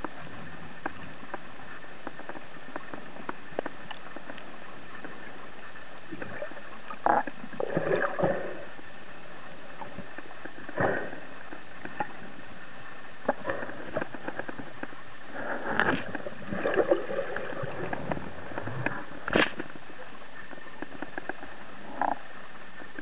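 Underwater sound through a diving camera's housing: a steady hiss with scattered faint clicks. About half a dozen louder short bursts of knocks and scrapes come from the diver's movements and speargun, the sharpest near the end.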